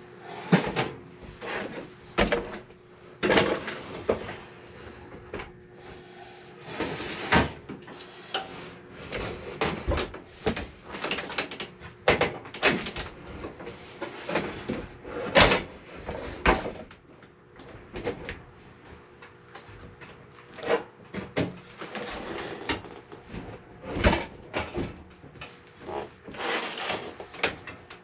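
Irregular knocks, clunks and scrapes as a sheet-metal RV range-oven is set into its wooden cabinet opening and shifted into position.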